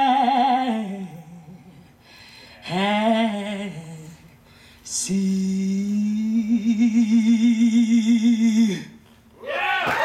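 A woman's solo voice singing wordless closing phrases: two short phrases that trail downward, then one long held note that breaks into a wide vibrato and stops near the end. The audience starts cheering and applauding just after.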